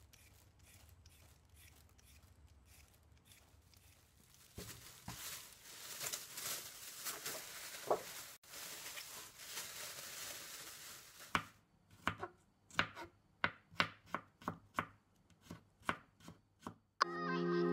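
Kitchen knife chopping garlic on a plastic cutting board, sharp separate strikes about two a second in the last third. Before that, soft handling noises and several seconds of steady hiss, and music begins right at the end.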